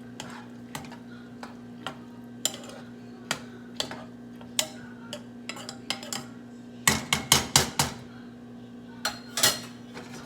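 Metal utensil clinking and knocking against a cooking pot: scattered single knocks, then a quick run of about six sharp clanks about seven seconds in, and two more near the end. A steady low hum runs underneath.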